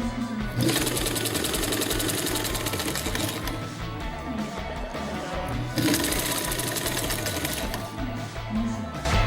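Singer 660 electric sewing machine running in two runs of rapid stitching, the first starting just after the start and stopping about halfway, the second starting again a couple of seconds later, over background music.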